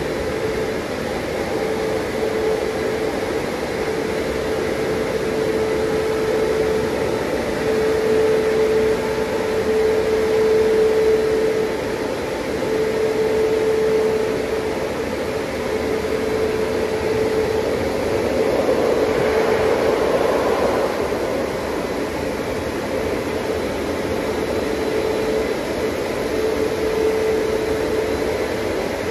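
Turbo Dry blowers of a Christ Vitesse car wash running at the drying stage: a steady, loud rush of air with a humming fan tone.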